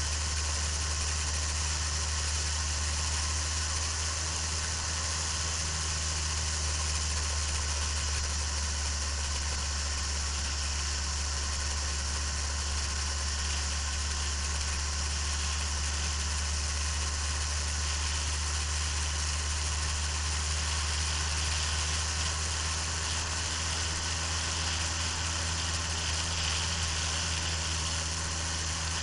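Steady low drone of a vehicle travelling at speed, with a constant hiss of wind and road noise, picked up by a camera mounted on the vehicle. The engine note holds level, with no revving up or down.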